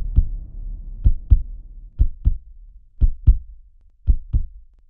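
Heartbeat sound effect: five slow lub-dub double thumps, about one a second, over a low hum that fades away in the first two seconds.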